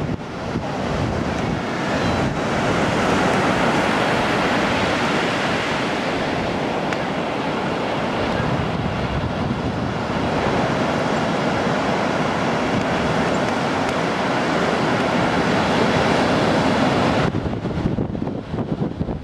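Surf breaking on the shore, mixed with wind buffeting the microphone, a steady loud rush with no clear calls in it. The rush drops off abruptly about two seconds before the end.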